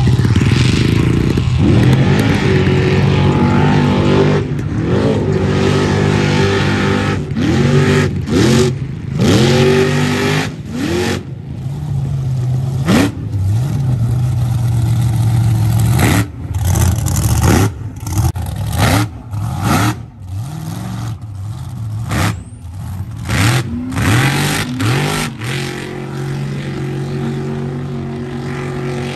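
A mega truck's engine revving hard in repeated bursts, its pitch climbing and dropping again and again, as it powers through a mud pit. It settles to a steadier run near the end.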